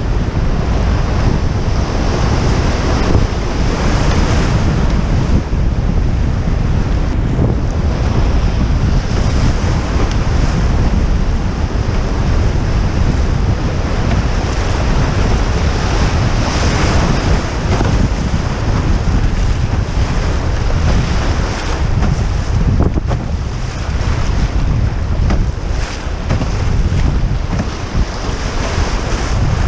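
Rushing whitewater of a river rapid all around the canoe, with a heavy low rumble of wind buffeting the microphone.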